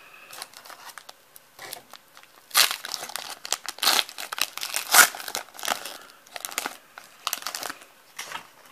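Foil wrapper of a 2016 Donruss Optic baseball card pack crinkling and tearing as it is pulled open at the seams. It comes in irregular crackling bursts that are loudest and densest in the middle, then thin out.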